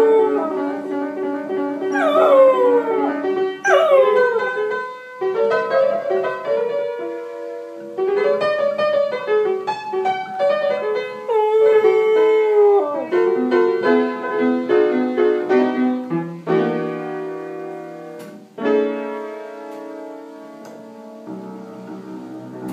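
Blues piano playing while a dog howls along, two long falling howls in the first few seconds. The piano then carries on alone in chords, ending on held low chords.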